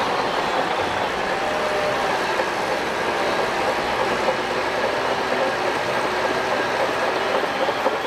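Shantui DH17 crawler bulldozer at work, its engine and steel tracks running steadily as it pushes sand with its blade.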